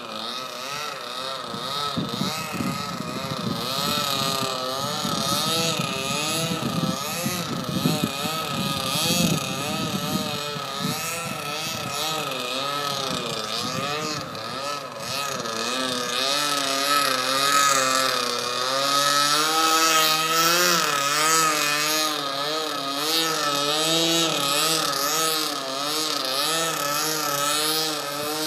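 OS .40 FP two-stroke glow engine of an RC model aerobatic plane, running through a MACS header and CCM muffler and turning an 11x4 propeller in flight. Its buzzing note rises and falls continually as the plane passes and manoeuvres. A low rumble sits under it for the first ten seconds or so.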